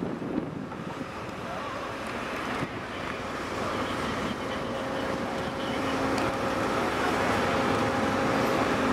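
A vehicle engine running steadily, with a faint steady hum that grows gradually louder, mixed with wind on the microphone.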